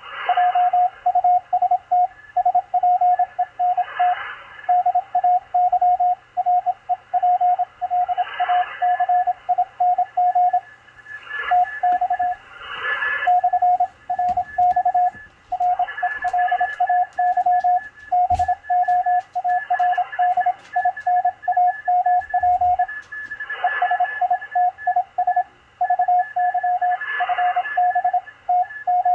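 Morse code (CW) on the 20-metre amateur band from a Machilite DSP SDR receiver: a steady tone keyed on and off in dots and dashes, with a fainter second Morse signal at a higher pitch. Rushes of static swell up about every four seconds, and there is a sharp click about eighteen seconds in.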